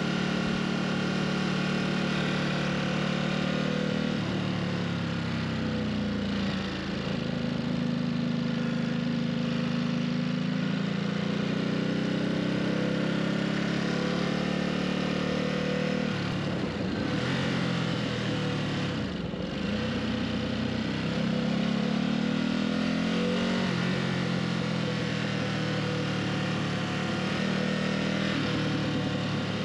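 Ducati Supersport's L-twin engine under way on the road, its pitch rising and falling as the rider accelerates, shifts gears and eases off. Wind and road noise run underneath.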